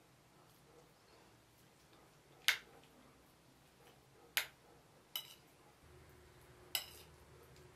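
Metal spoon clinking against a plate while scooping food: four sharp clinks spread over a few seconds, the last two ringing briefly.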